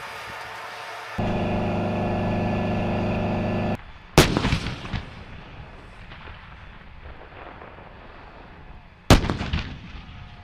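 Two blasts from M109 Paladin self-propelled howitzers firing, about five seconds apart, each followed by a rolling echo. Before them a loud steady engine-like drone cuts off abruptly.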